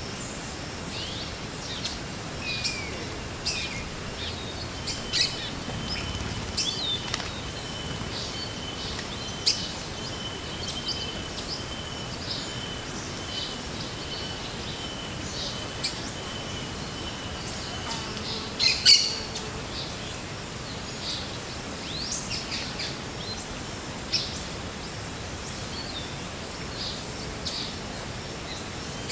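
Forest birds calling and chirping, many short high calls scattered over a steady background hiss, the loudest a sharp call about nineteen seconds in. A thin, steady high tone holds for about thirteen seconds from about five seconds in.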